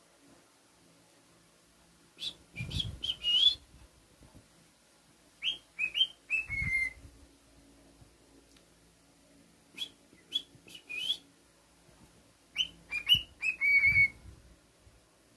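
Cockatiel whistling four short phrases of quick rising notes, each phrase ending on a held note, with pauses of a few seconds between them. Low thuds sound under some of the phrases.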